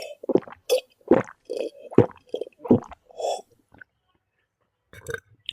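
Close-miked wet chewing and mouth smacks of someone eating noodles and rice: a quick run of short squishy bites, a pause of about a second and a half, then a few more near the end.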